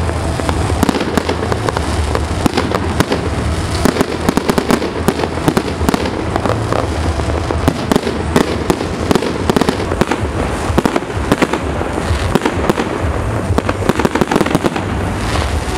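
Aerial fireworks display: a continuous, dense run of bangs and crackling as shells burst one after another.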